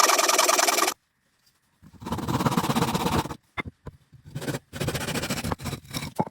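Handsaw cutting pine wood in rapid back-and-forth strokes, in several spells that stop abruptly with silent gaps between.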